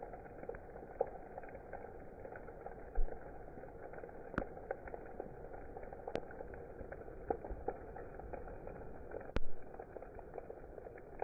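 Rain falling in a steady, muffled patter, with many small drop ticks and a few sharper clicks, three of them standing out.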